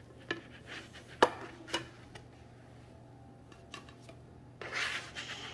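Slotted spatula sliding under pancakes on an electric griddle and knocking against a platter as they are moved over: a few sharp clicks in the first two seconds, the loudest just over a second in, and a longer scrape near the end.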